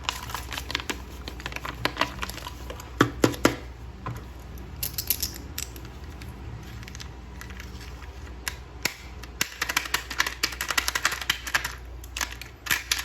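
Many small plastic clicks and taps with some rustling, from a toy figure being handled, denser from about nine and a half seconds in.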